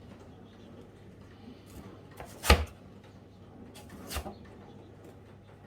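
Two sharp knocks of kitchen utensils, about a second and a half apart, the first much louder than the second.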